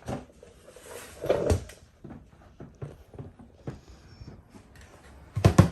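Lid of a portable compressor fridge being handled and shut: several hard plastic knocks and thumps, the loudest about a second and a half in and a quick pair near the end.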